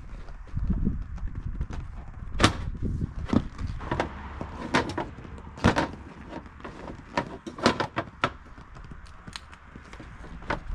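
Irregular hard knocks and clicks of an inflatable boat's floorboard panels and cross-rail being pushed and tapped into their fittings during assembly, a stiff fit on the new boat.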